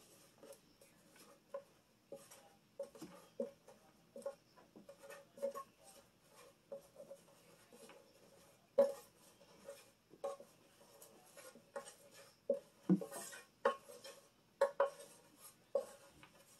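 Fingers working dough inside a bread machine's metal baking pan: irregular soft knocks and clicks as the hand bumps the pan and kneading paddle, with no motor running. The strongest knocks come about nine and thirteen seconds in.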